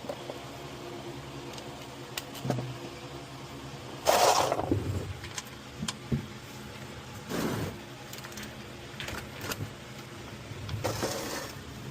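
Metal hand tools clinking and knocking in several separate bursts, the loudest about four seconds in, over a steady low hum, during work on the oil drain plug under the car.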